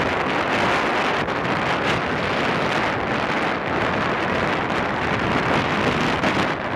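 Strong wind buffeting the microphone in a loud, steady rush, with ocean surf breaking on rocks behind it.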